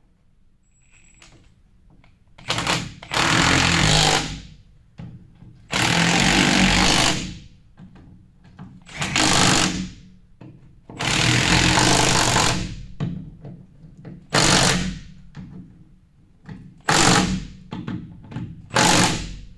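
Impact wrench hammering on the sweeper's skirt bolts in about seven bursts, the early ones one to two seconds long and the last few short.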